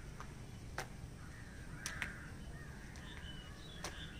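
Yellow skipping rope slapping the ground a few times at an uneven pace, four sharp clicks spread over the few seconds, with crows cawing in the background.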